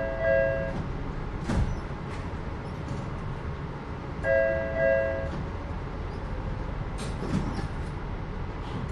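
Two-note electronic chime aboard a Los Angeles Metro Rail train, sounding at the start and again about four seconds in, over the train's steady rumble. A few sharp clacks come near the middle and near the end.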